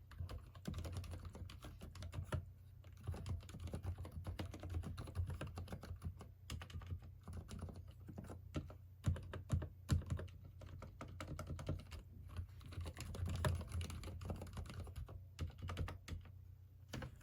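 Continuous fast typing on a Durgod x Thinkway Tauche.T mechanical keyboard with Cherry MX Silent Red switches, which give muted, dampened keystrokes. The typing stops near the end.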